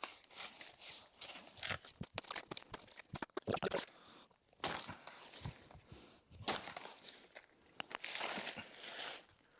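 Small hand axe cutting into a plant: irregular chops, crunches and tearing of plant fibre, with rustling of leaves and stems in a few longer patches near the end.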